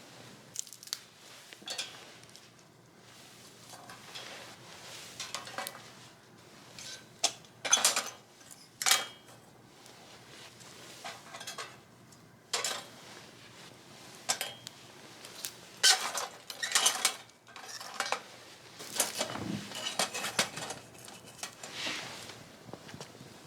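Metal parts of a flat fire pit clinking and clanking as they are handled, in irregular knocks, a few of them louder.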